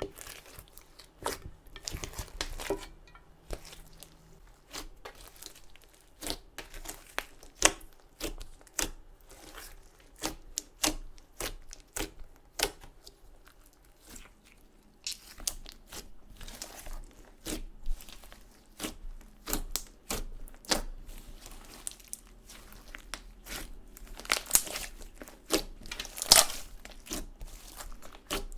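Clear slime with crushed makeup and glitter mixed in, being worked and kneaded by hand, with a dense run of irregular sticky clicks, pops and crackles.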